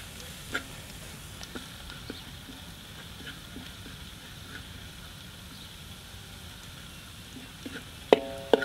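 Food sizzling in a wok as it is stirred with a metal spatula, with light clicks and scrapes of the spatula against the pan. Near the end the spatula strikes the wok twice, each strike ringing briefly.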